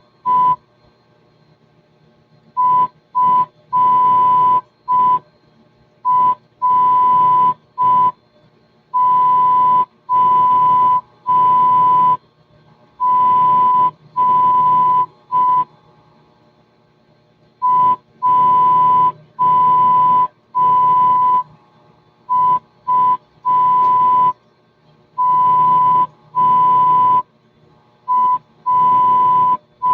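Morse code being sent: a steady tone of about 1 kHz keyed on and off in slow dots and long dashes, with pauses between letters and a hiss that sounds only while the tone is on.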